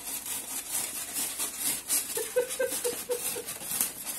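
Craft knife cutting a styrofoam sheet: repeated short scraping strokes, with a run of quick squeaks from the foam about halfway through.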